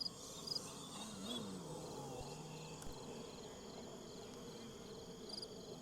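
Crickets chirping in short, evenly repeated chirps, with a faint low hum underneath that rises and falls.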